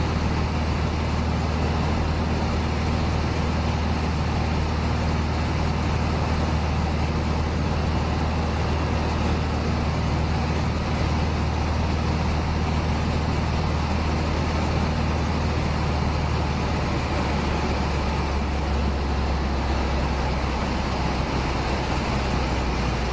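Cessna 150's Continental O-200 four-cylinder engine and propeller droning steadily in cruise flight, with airflow rushing past the airframe, heard inside the cockpit. The low engine note shifts a little about sixteen seconds in.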